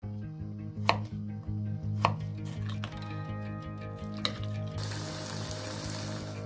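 A knife chopping raw potato on a wooden cutting board, with two sharp chops about one and two seconds in, then the hiss of battered potato pieces frying in hot oil over the last second and a half, over background music with a steady bass line.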